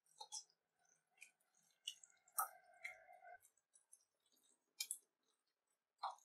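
Faint, scattered wet clicks and squelches of a hand mixing a thick batter of shredded cauliflower, cornflour and flour in a glass bowl. A faint held tone lasts about a second midway.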